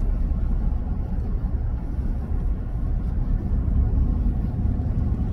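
Steady low vehicle rumble with no distinct events.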